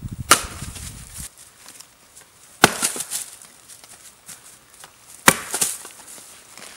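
An axe splitting firewood on a chopping log: three sharp strikes about two and a half seconds apart, each followed by a short crack of the wood giving way.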